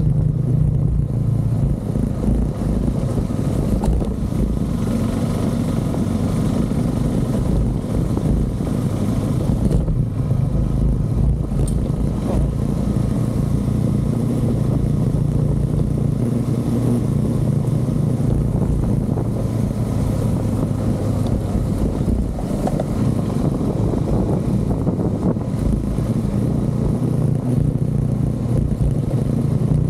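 KTM 390 Adventure's single-cylinder engine running steadily while cruising, its pitch shifting slightly with the throttle, over a steady rush of road and wind noise.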